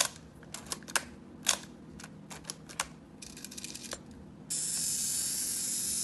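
Canon 7 rangefinder camera being worked by hand: a string of separate sharp mechanical clicks, then a quick run of fine ticks. About four and a half seconds in, a steady hiss starts abruptly.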